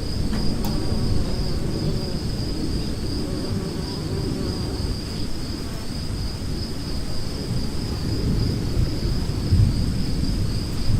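Steady high chorus of trilling crickets over a low rolling rumble of distant thunder, which swells near the end.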